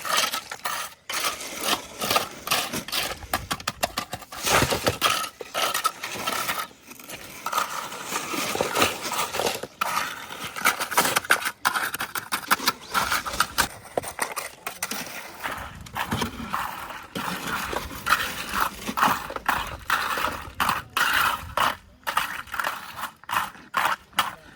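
Hard objects clattering, clinking and scraping, many short knocks a second and near-continuous throughout.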